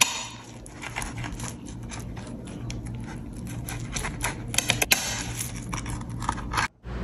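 Pizza-cutter wheel rolling through a crisp, pan-cooked flatbread pizza crust on a plate: a run of irregular crisp clicks and crunches that stops suddenly near the end.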